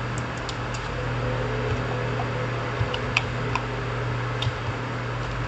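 Steady low hum and hiss of the recording setup, with a handful of faint clicks from the computer's keyboard and mouse.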